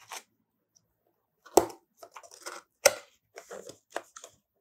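Cardboard box and packaging being opened and handled: short rustles and scrapes, with two sharp knocks about one and a half and three seconds in.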